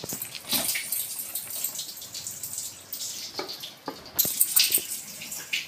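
Soft, irregular wet clicks and scrapes of chicken curry being handled: spooned from the pot, then torn apart by hand on a plate.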